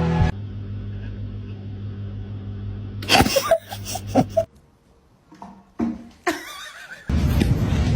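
A cat sneezing several times in quick succession about three seconds in, with one more sneeze a couple of seconds later, over a low steady hum.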